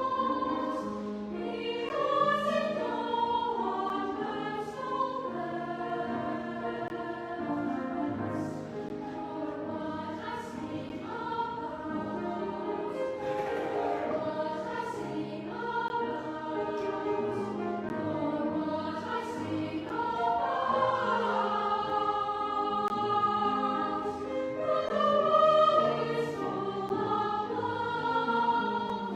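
Children's choir singing in several parts at once, the voices moving together in sustained phrases.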